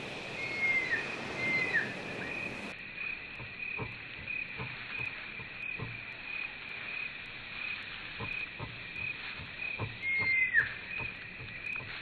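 Outdoor animal chorus: a steady high chirp repeated about twice a second, as from insects or frogs. Three short high whistles falling in pitch cut across it, two near the start and a louder one about ten seconds in.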